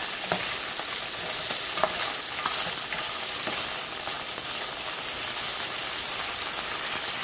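Chicken pieces sizzling steadily in hot cooking oil in a nonstick skillet, stirred and turned with a spatula that gives a few short clicks and scrapes against the pan.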